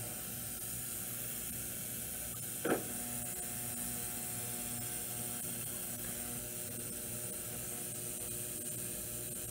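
Ultrasonic cleaner running with a steady electrical buzz and a pulsing hum over a faint hiss, cleaning varnish out of small-engine carburetor parts in degreaser. A single short knock about three seconds in as the float bowl is set into the basket.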